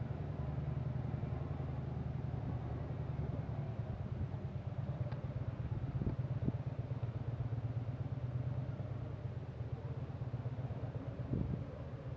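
Steady low drone of motor vehicle engines running, with a few faint knocks.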